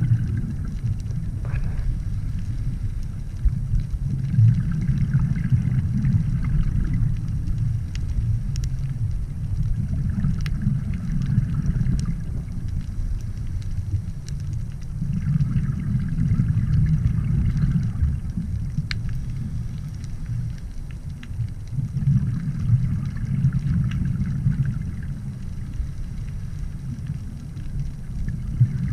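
Muffled underwater rumble and water noise, swelling and easing, with a soft hiss that comes back in a slow cycle about every five to six seconds and a few faint ticks.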